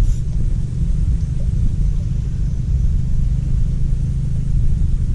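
Steady low rumble, loud and wavering in level, with no voices over it.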